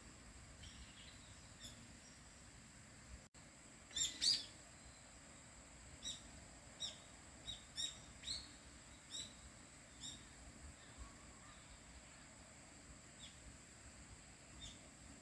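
Small bird chirping in short, high calls, a loud cluster about four seconds in, then single chirps every second or so that thin out toward the end. A faint, steady high-pitched drone runs underneath.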